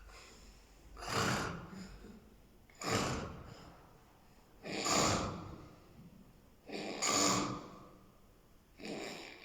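A person snoring: five noisy snoring breaths about two seconds apart.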